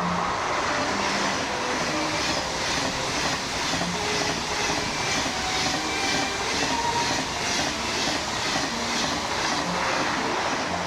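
Train running on the rails: a steady rumble with a rhythmic wheel clatter, about two beats a second.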